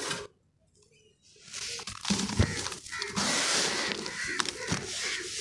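Hands squeezing and crumbling dry sand and charcoal chunks in a plastic tub: gritty crunching and rustling with small crackles. It starts after a short pause about a second in and grows louder and denser about three seconds in.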